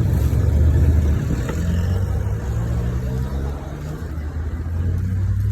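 A car engine running with a low rumble, its pitch shifting a little about halfway through.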